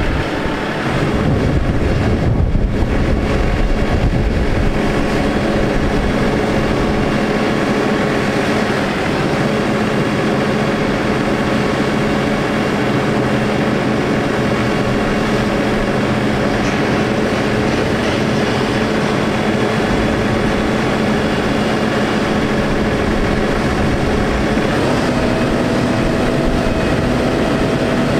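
Cummins ISX diesel engine of a Kenworth T800 crane truck running steadily while the Altec crane's boom is worked. It gets louder about a second in, and a new steady hum joins a few seconds before the end.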